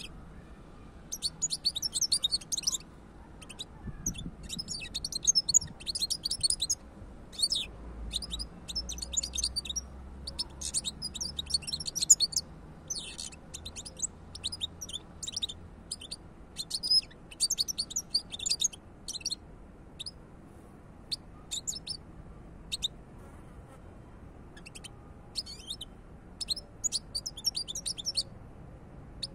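European goldfinch singing: runs of fast, high twittering song a second or two long with short pauses between, thinning to a few single notes for a few seconds before a last run of song near the end.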